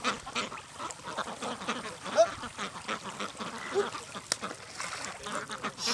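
A large flock of domestic ducks quacking on the water, many short calls overlapping, with one louder call about two seconds in.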